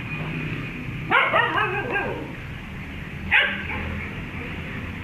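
A dog barking: a pitched call about a second in that wavers for nearly a second, then one short sharp bark a little after three seconds.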